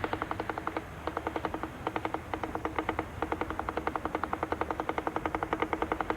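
Rapid, even mechanical clatter of about nine beats a second, with a few short breaks in the first three seconds.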